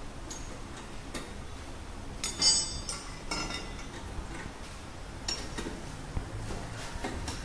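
A metal spanner ticking and clinking against bolts and suspension parts as the old front air strut is unbolted. A sharp, ringing metal clank comes about two and a half seconds in, with a smaller one just after.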